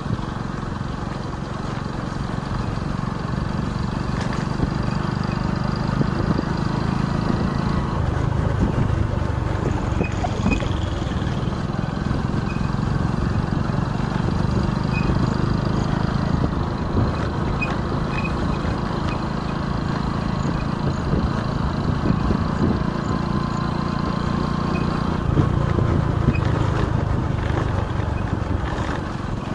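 Motorcycle engine running while riding, with steady wind and road noise; the engine note shifts a few times as the speed changes.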